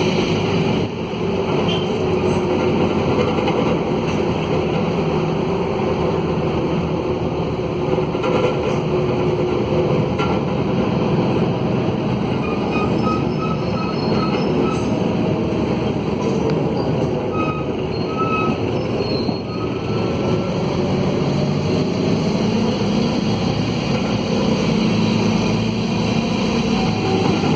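Mercedes-Benz OM904LA four-cylinder diesel of a midibus running with a broken exhaust, heard from on board, loud and rough. The engine note shifts in pitch as the bus moves and climbs again in the last several seconds as it pulls away.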